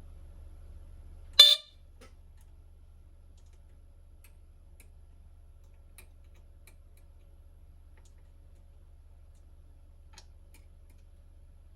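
Archer 271-578 smoke alarm's horn giving one short, loud blast about a second and a half in, over a steady low hum, followed by a few faint clicks.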